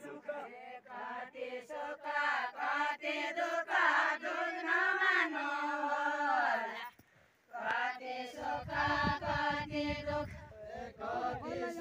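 A group of women singing a Nepali Deuda folk song together, breaking off briefly about seven seconds in before resuming. A low rumble sits under the voices for a couple of seconds after the break.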